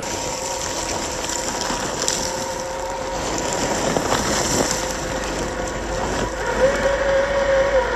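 Traxxas TRX-4 1/10-scale RC crawler's electric motor and gears whining steadily as it drives, over a steady rough hiss. The whine grows louder and a little higher about six and a half seconds in.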